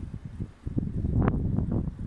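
Gusting wind buffeting the microphone: an uneven low rumble that surges and dips, with a sharper gust a little past a second in.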